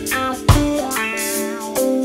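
Background song in an instrumental stretch: guitar notes over a drum beat, with a sharp drum hit shortly after the start.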